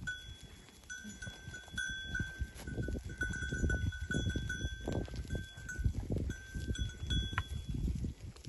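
Bells on a grazing herd of hair goats ring on and off, clinking irregularly as the animals move and feed. A steady low rumble runs underneath.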